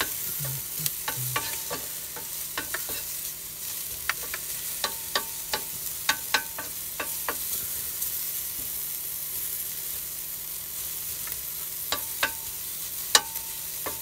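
Smoky bacon and chopped onion sizzling steadily in a Ridge Monkey non-stick toaster pan. A wooden spatula taps and scrapes the pan as the food is stirred: many sharp taps in the first seven seconds and again near the end, with a quieter spell between. A few taps leave a short ring from the metal pan.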